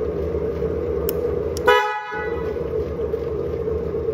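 Sound system of a battery-powered ride-on GP40 locomotive: a steady idling diesel prime-mover sound, with a short toot of the air horn about one and a half seconds in.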